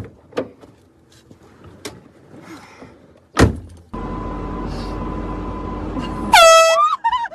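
A sharp thump, then a car running steadily with a thin whine, and near the end a sudden, very loud air horn blast lasting about half a second, followed by a brief yelp.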